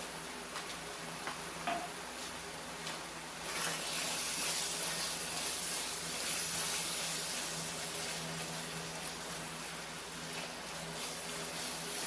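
Pork and tomato red sauce sizzling in a pan while it is stirred, with a few light utensil clicks at first. The steady hiss grows louder about three and a half seconds in.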